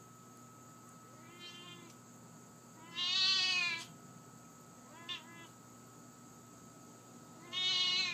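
Siamese cat meowing four times: a soft meow about a second in, a loud drawn-out meow around three seconds, a short double meow near five seconds, and another loud meow at the end. Each call rises and then falls in pitch.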